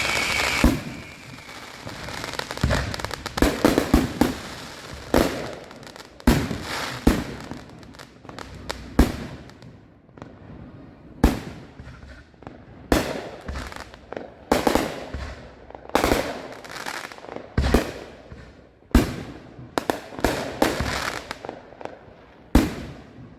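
Consumer fireworks going off: a long, irregular run of sharp bangs and crackling reports with echoing tails, some loud and close, others fainter, at times several in a second. It opens with a steady high whistling hiss that ends in a bang.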